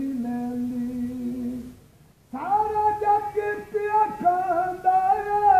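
A man singing a naat unaccompanied, holding long notes, with a short pause for breath about two seconds in.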